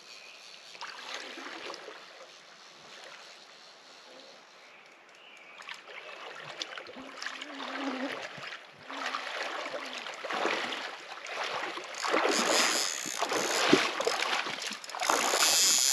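Water splashing and churning around a person's legs as he wades through a shallow river, starting faint and growing stronger and louder over the last few seconds as he wades close. A soft steady stream hiss runs underneath.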